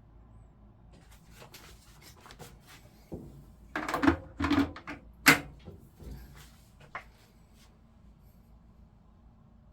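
A short run of knocks and rattles from something being handled, the loudest a sharp knock about five seconds in and a lighter one near seven seconds.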